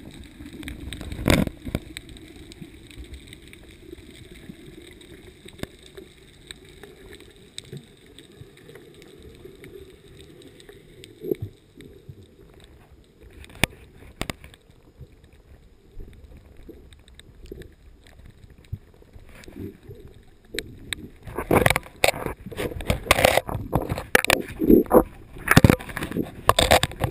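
Underwater sound through a camera's waterproof housing: a low muffled wash with scattered sharp clicks, then, about 21 seconds in, a run of loud knocks and clatter as the housing is up against the rock of a cave wall.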